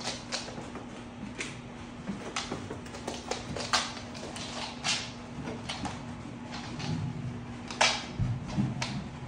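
A dog searching for hidden food: its nails click irregularly on a hardwood floor, with short sniffs. There are a few dull thumps near the end as it paws under a table. A faint steady hum runs underneath.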